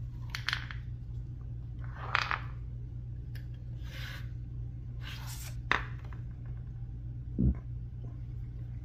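Hands taking a 9mm carbine apart: short scrapes and clicks of its metal and polymer parts as the recoil spring assembly and bolt section are drawn out, with a dull knock about three-quarters of the way through.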